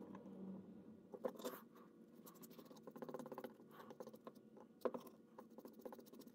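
Faint, light scratching and scraping of a small paintbrush working black ink onto a leather tail over a paper towel, with a quicker run of strokes about three seconds in.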